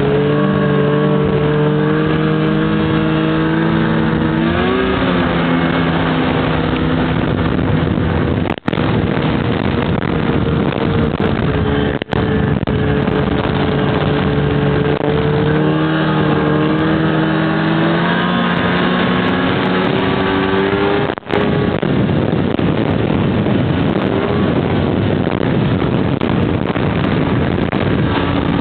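Snowmobile engine running steadily at trail speed, its pitch shifting a little up and down, over a constant rushing noise. The sound cuts out briefly three times.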